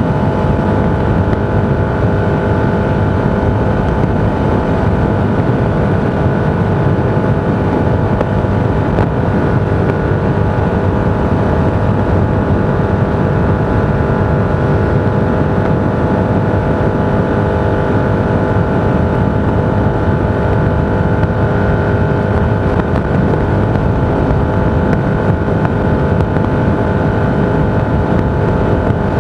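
Steady road and wind noise inside a moving vehicle: a constant low rumble with several steady tones humming over it.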